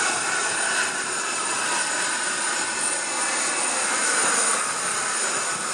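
Steady jet aircraft turbine noise on an airport apron: a loud even hiss with a thin high whine over it.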